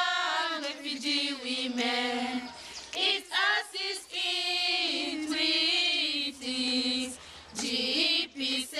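A group of young women singing together without accompaniment, with several long held notes.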